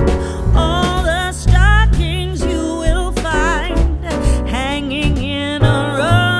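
Background music: a song with a wavering sung melody over a bass line and a steady beat.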